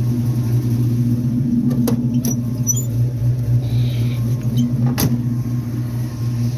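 1980 Chevrolet Malibu Classic wagon's engine idling steadily, with a few sharp clicks, the loudest about five seconds in.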